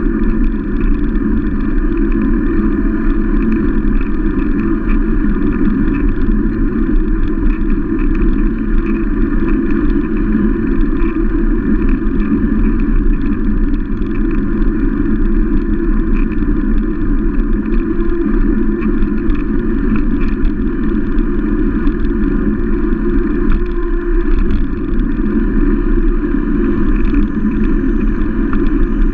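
Steady wind rush and rumble on the microphone of a bicycle-mounted camera while riding, with faint clicks and rattles throughout.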